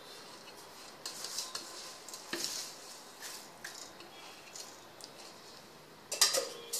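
Soaked millet and rice grains being scooped and tipped from a steel vessel into a wet grinder's steel drum, with wet grainy rustles and small clinks of metal on metal, and a louder clatter near the end. The grinder motor is not running.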